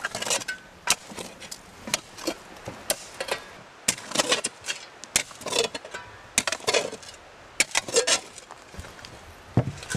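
A long-handled digging tool striking and scraping into stony dirt while a pit is dug. The strokes are sharp and irregular, about one a second, sometimes two or three in quick succession.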